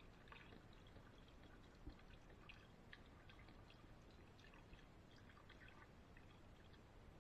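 Chicken broth pouring from a bottle into a pot of raw chicken thighs: a faint steady trickle with scattered small splashes.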